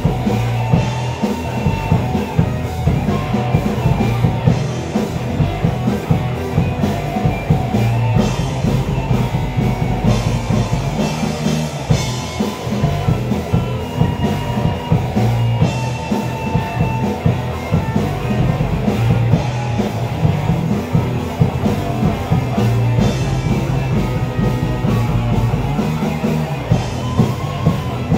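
Rock band playing live: distorted electric guitars, bass guitar and a Pearl drum kit, with the drums keeping a steady driving beat.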